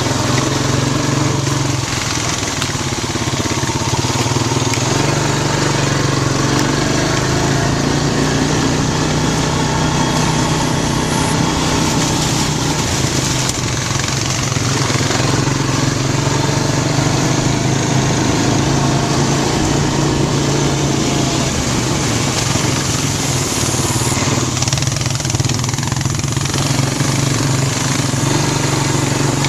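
Honda Rancher 350 ATV's single-cylinder four-stroke engine running steadily at a fairly even pitch, on its freshly rebuilt carburetor.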